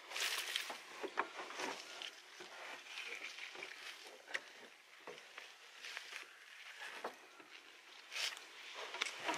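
Rustling with scattered light clicks and knocks from handling a landing net and a freshly caught pike in a john boat, loudest just after the start.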